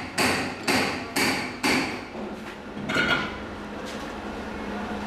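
Hammer blows on metal: four strikes about half a second apart, then a pause and one more strike about three seconds in, each with a short metallic ring. A steady low hum runs underneath.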